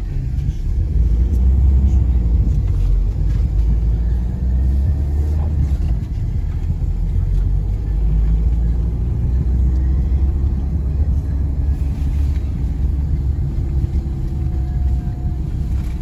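Car driving slowly, heard from inside the cabin: a steady low rumble of engine and road noise.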